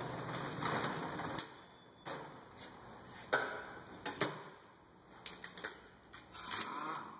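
Irregular clicks and knocks, with short rustling noises near the start and near the end.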